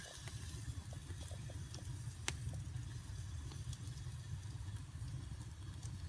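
Log campfire burning, with sparse faint crackles and one sharper pop about two seconds in, over a steady low rumble.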